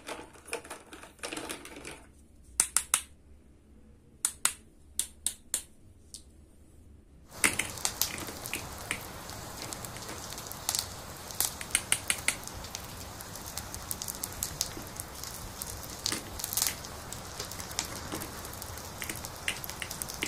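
Hard plastic toy kitchen pieces being handled and tapped together: scattered sharp clicks and taps, then from about seven seconds a steady hiss with frequent clicks over it.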